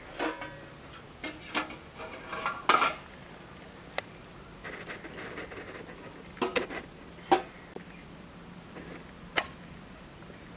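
Irregular sharp clicks and light clinks as food is peeled and cut against an upright metal blade and the pieces drop into a stainless steel bowl, with a soft rustle of handling in between.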